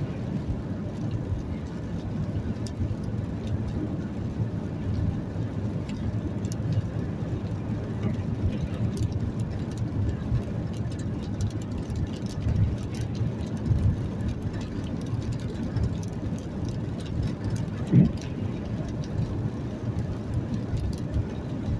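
Steady low rumble of a vehicle on the move: engine and road noise running evenly, with a short louder knock or bump about eighteen seconds in.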